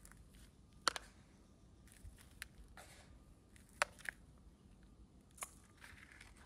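A few crisp snips or cracks of plant material being cut: a quick pair about a second in, another pair near four seconds, and one more about five and a half seconds in, with faint rustling between.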